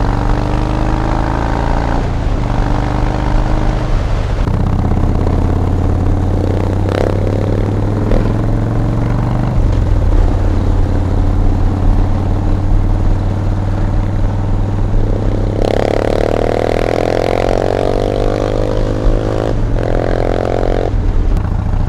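Harley-Davidson Street Bob's V-twin engine under way on a ride. Its note changes pitch several times in the first ten seconds, then rises under acceleration for several seconds near the end.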